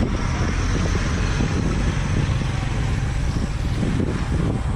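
Steady rumble and hiss of road traffic.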